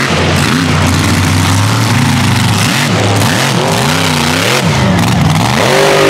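Supercharged big-block V8 of a rat rod mega truck running hard on a dirt race course. The engine revs up and down again and again as the throttle is worked, climbing highest near the end.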